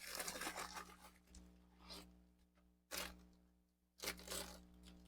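Plastic parts packaging being handled and torn open, in several short bursts of rustling and tearing.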